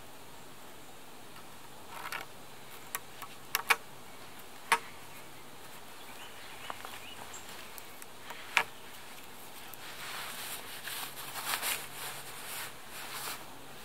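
Twisted cord being wrapped and pulled tight around a wooden post and crossbar as a lashing: a few sharp clicks and ticks between the first and ninth second, then rustling and scraping of the line and hands near the end.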